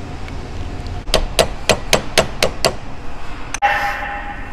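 Quick, light hammer taps on the steel head of a Snap-on ratchet held over a vise, about four taps a second starting about a second in, tapping the cover plate into place during the rebuild.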